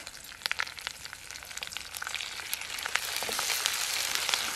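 Whole spices and curry leaves frying in hot oil in a stainless steel kadai for a tempering, crackling with many sharp pops. The sizzle swells louder from about two seconds in.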